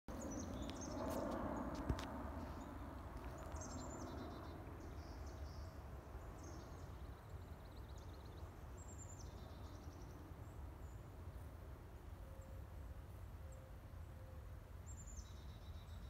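A small songbird sings the same short, very high song three times, each starting with thin high notes and dropping into a faster, lower trill. A steady low rumble runs underneath, and there is a sharp click about two seconds in.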